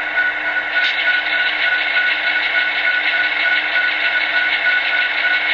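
Diesel locomotive engine sound from the DCC sound decoder of an Athearn Genesis HO-scale SD70ACe, played through the model's small speaker: a steady running drone with a thin, high whine over it and little bass, brightening slightly about a second in.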